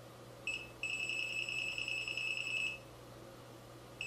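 GVDA GD107 pen-type multimeter's buzzer beeping in its live-wire test with the probe in a socket's phase slot: a high-pitched steady tone, a short blip about half a second in, then about two seconds long, starting again near the end. The beep signals that the live (phase) conductor is detected; neutral and earth give no beep.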